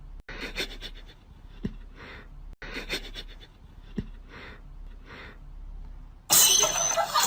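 Rhythmic breathing or panting, about one noisy breath a second, each with a short click at its start. About a second before the end a much louder burst of sound cuts in.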